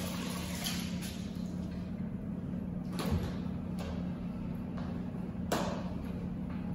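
A few sharp knocks and clicks from a stainless steel and glass shop counter being handled, the loudest about five and a half seconds in, over a steady low hum. A rushing hiss dies away in the first second.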